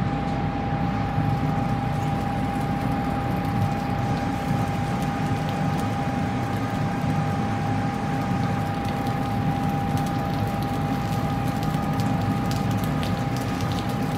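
Food sizzling and crackling on the wire grate of a tabletop grill, the crackles growing thicker as it cooks, over a steady hum with a constant whine.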